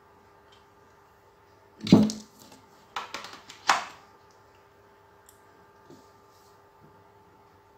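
Handling noise of a power adapter and its cable on a tabletop: a dull thump about two seconds in, then a quick run of clicks and knocks about a second later. A faint steady hum runs underneath.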